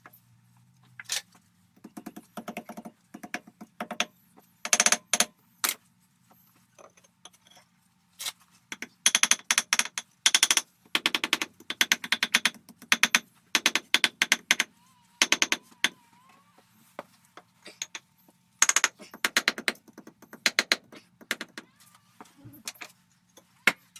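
Repeated runs of rapid scraping and clicking, hand-tool work against something hard, each run lasting a second or two with short pauses between, over a faint steady hum.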